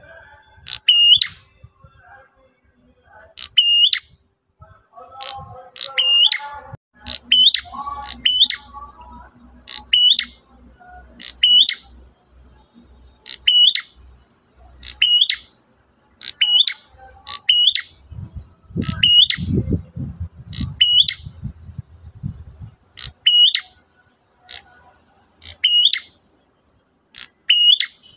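Prenjak merah songbird calling over and over, a sharp high note that sweeps downward to a hooked end, repeated about once every second or so.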